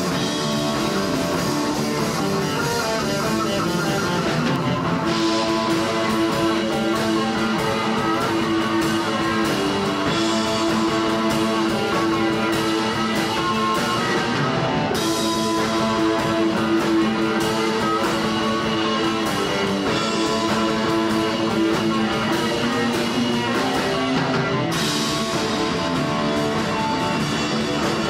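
Live rock band playing: electric guitar, electric bass and drum kit together, with steady cymbal hits over the guitar lines. The sound thickens and brightens about five seconds in, and shifts again around fifteen and twenty-five seconds in.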